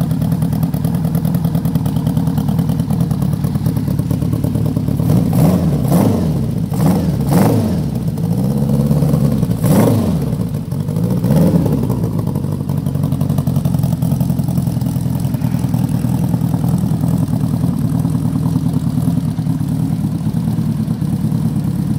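1978 Honda GL1000 Gold Wing's flat-four engine idling steadily through aftermarket exhausts. Its throttle is blipped several times in the middle stretch, each rev rising and falling in pitch before it settles back to idle.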